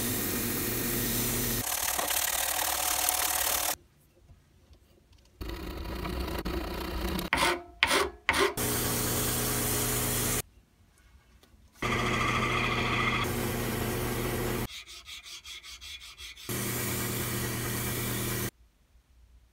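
Sandpaper strip held against a wooden dowel spinning on a wood lathe: a steady sanding hiss over the lathe's hum. It comes in four separate stretches with short quiet breaks between them, and a few clicks near the middle.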